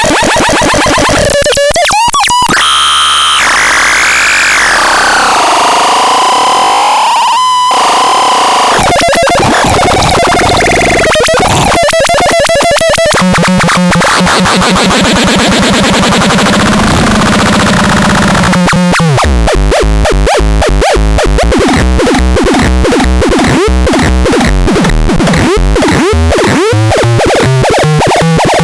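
Loud, harsh electronic synthesizer noise with gliding pitch sweeps. About two-thirds of the way in it turns into a fast pulsing rhythm with a deep low pulse.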